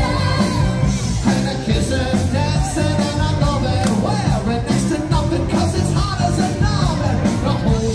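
A band playing a song with a lead singer over a steady drumbeat.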